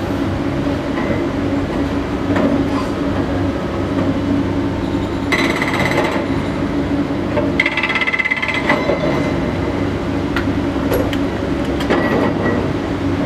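Cat 330DL excavators' diesel engines running steadily, with two bursts of rapid hammering from a hydraulic breaker on one excavator: the first about five seconds in, lasting about a second, and the second at about seven and a half seconds, lasting a little over a second.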